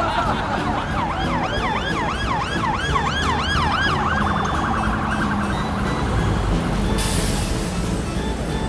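Emergency-vehicle siren in city traffic, its pitch sweeping up and down about three times a second, then switching to a faster warble about four seconds in and fading out. A steady low traffic rumble lies underneath, and a hiss comes in about seven seconds in.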